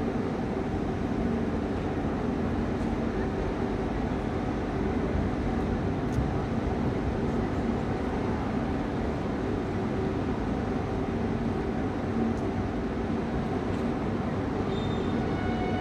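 Steady outdoor background rumble with a constant low hum, a few faint ticks and brief faint high tones near the end.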